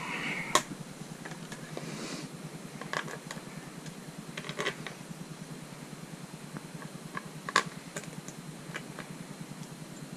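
Small clicks and taps of bolts and plastic washers being handled and fitted into a clear plastic windscreen, with a sharper click about half a second in and another near eight seconds, over a faint steady low hum.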